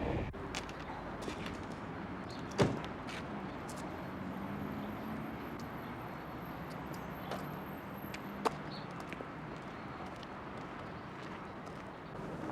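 Steady low background rumble. One loud bang, a door being shut, comes about two and a half seconds in, and a sharp click near eight and a half seconds.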